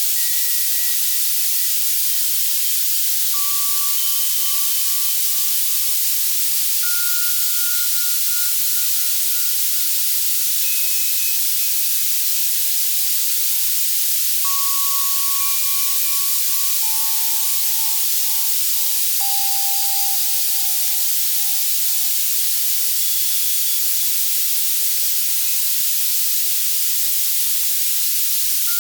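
Steady white noise, strongest in the treble, from an Access Virus C synthesizer, with slow, sparse synthesized bell notes on top: one note every few seconds, each at a different pitch, ringing a few seconds and fading, with a quiet stretch of about four seconds near the end. A tinnitus-masking sound.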